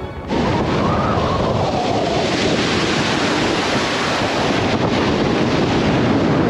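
Small sea waves washing and foaming around a coral rock at the water's edge, a steady surf noise, with wind buffeting the microphone.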